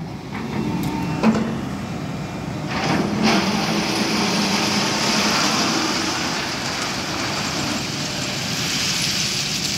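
Diesel engines of a Sany excavator and a tipper truck running steadily at a ballast loading site, with a steady hiss that comes up about three seconds in and a single short knock just over a second in.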